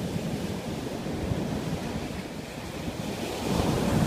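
Rough surf breaking and washing up a sandy beach, with wind buffeting the microphone. A wave washes in louder near the end.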